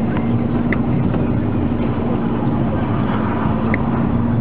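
Steady engine and road drone heard from inside a moving car's cabin on a wet road, with a constant low hum. Two brief high chirps sound, one under a second in and one near the end.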